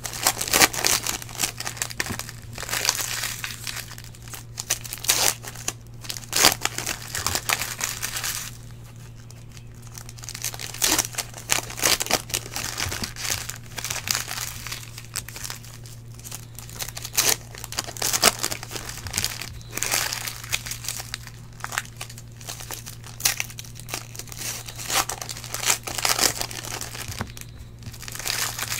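Trading-card pack wrappers crinkling as packs are opened and handled, in irregular runs of crackle with a lull about nine seconds in. A steady low hum runs underneath.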